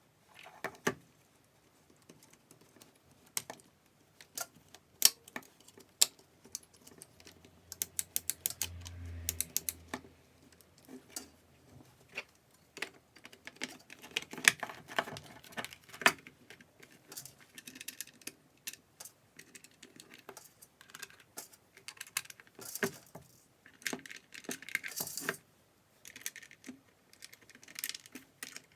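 Irregular clicks, taps and clatter of small parts and tools being handled, with a quick run of rapid clicks and a short low hum about nine seconds in.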